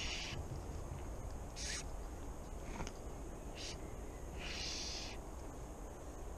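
Fly line being stripped in by hand through the rod guides, in four short hissing swishes, the last one longer, over a steady low rumble.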